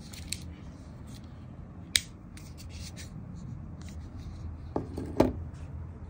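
Victorinox pocket knives being handled, with light scraping and small clicks. There is a sharp click about two seconds in, then two knocks near the end as the knives are laid on a wooden bench.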